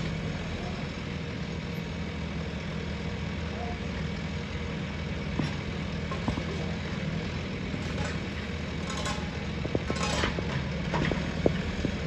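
Heavy diesel engine running steadily at an even pitch, with a few short knocks and clatters near the end.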